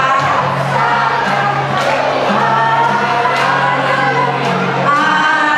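A small mixed choir of men and women singing a slow song together with long held notes, accompanied by an acoustic guitar.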